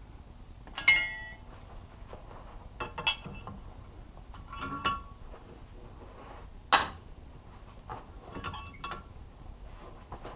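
Steel tongs and tools clanking and clinking on a steel anvil as they are picked up and set down: a ringing clank about a second in, then several lighter clinks and a sharp knock about two-thirds through.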